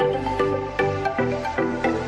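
Background music with a steady beat, short notes changing about two or three times a second.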